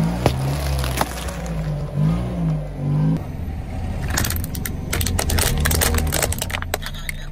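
Car engine running at low speed with a couple of sharp cracks in the first seconds. From about four seconds in, a dense run of cracking and crunching as a car tyre rolls over a row of toy cars and crushes them.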